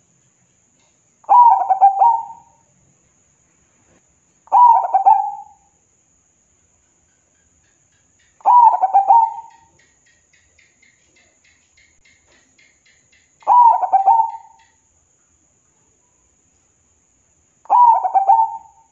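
Zebra dove (perkutut) cooing: five short phrases of quick staccato coo notes, each about a second long, spaced three to five seconds apart.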